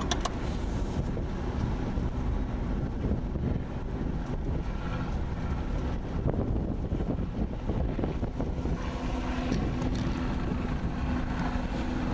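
Steady road noise of a car driving on a wet road, heard from inside the cabin: a low rumble with tyre hiss. A faint steady hum joins in about two-thirds of the way through.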